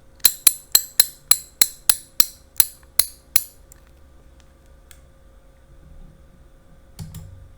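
A matraca (ratchet noisemaker) giving about eleven sharp, separate clacks that slow down as it turns, recorded for a sound effect.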